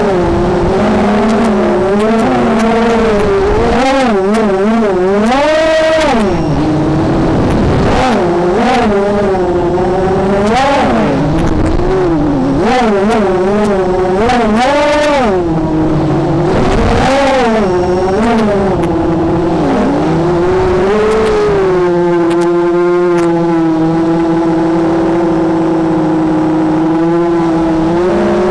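Brushless motors and 5-inch propellers of an FPV racing quadcopter (Cobra 2206 2100KV motors) whining loudly, the pitch swooping up and down again and again with throttle changes, then holding steady for the last several seconds.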